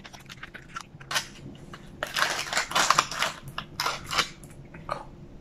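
A McDonald's paperboard pie carton being torn open and handled, crackling with many quick clicks. The crackling is densest from about two to three and a half seconds in, with a shorter flurry just after four seconds as the pie is slid out of the sleeve.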